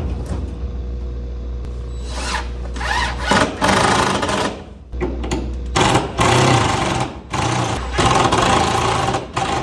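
Power drill driving screws through plywood: the motor whirs steadily, with one short and three longer loud stretches of about a second and a half each as the screws are driven into the wood.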